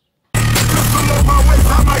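Music with heavy bass played loud through a car audio system's Xion speakers, cutting in suddenly just after a moment of silence.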